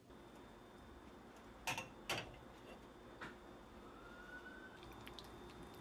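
A glass bowl on a saucepan of boiling water on the stove: two sharp clinks close together, then a fainter one, over a steady low hum, with a faint rising whistle near the end.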